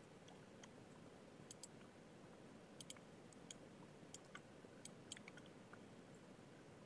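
Near silence: a low steady room hum with faint, scattered computer mouse clicks at irregular moments, most of them in the middle stretch.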